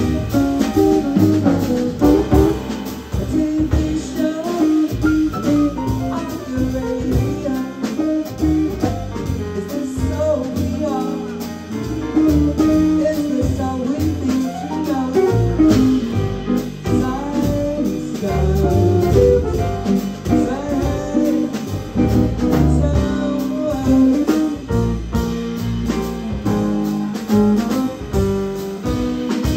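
Live jazz band playing: electric guitar, double bass, piano and drum kit, with a woman singing.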